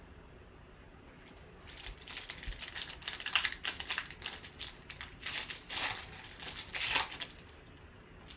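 Crinkling and tearing of trading-card pack wrapping, a run of irregular rustling bursts that starts about two seconds in and stops about seven seconds in.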